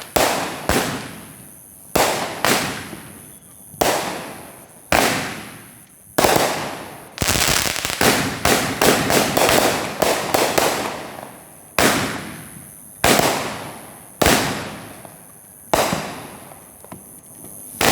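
A multi-shot consumer fireworks cake firing shell after shell, a loud bang about every second, each with a fading crackle. In the middle the bursts come close together in a dense crackling stretch.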